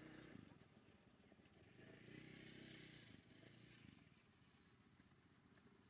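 Near silence with a faint, distant engine hum that swells twice, each time for about two seconds.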